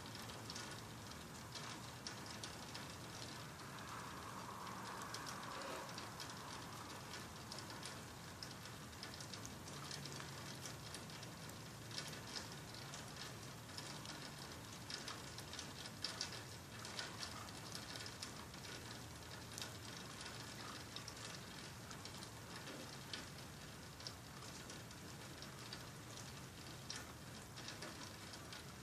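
Rain falling steadily, with drops pattering in quick, irregular clicks close by.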